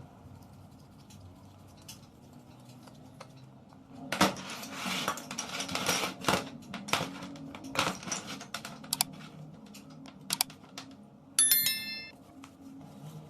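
Small metal parts and tools clinking and clattering on a workbench, with a busy run of knocks in the middle and a brief high metallic ring near the end.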